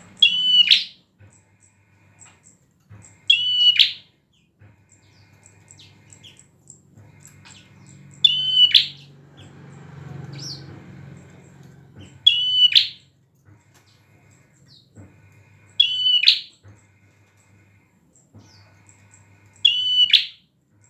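A prinia (prenjak) singing loudly. It gives six short, sharp phrases, each a quick run of high notes ending in a downward sweep, repeated about every three to four seconds.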